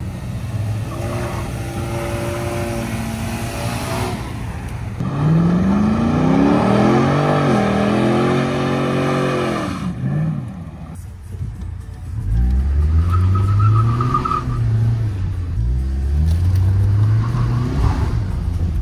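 Muscle car burnouts: an engine revs up hard about five seconds in with a loud hiss of spinning tyres. Later a deep engine rises and falls in revs in steps.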